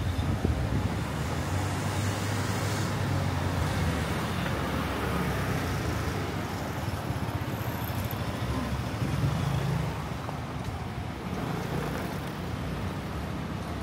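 Road traffic: cars and other vehicles going by, a steady low rumble of engines and tyres.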